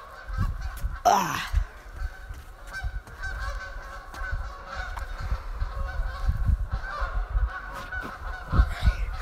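Rumbling bumps and knocks of a handheld phone's microphone being carried at a run, with a short falling vocal sound about a second in and a faint steady high tone in the background.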